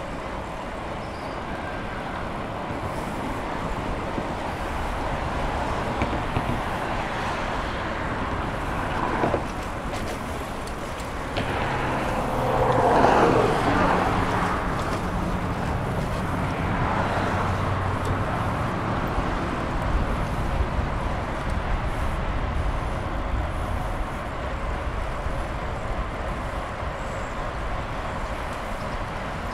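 Road traffic from passing cars with wind noise from a moving bicycle; the traffic swells for a couple of seconds partway through as the bike crosses a bridge beside the road.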